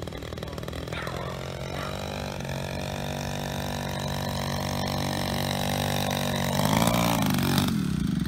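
Engine and propeller of a full-size radio-controlled Demoiselle replica running steadily and growing louder as it flies in low. Its pitch dips and rises briefly near the end, then clattering sets in as the wheels touch down on the grass.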